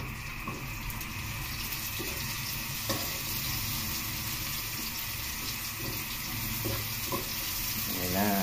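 Chopped onion sautéing in hot oil in a metal wok, a steady sizzle, stirred with a spatula that taps and scrapes the pan a few times.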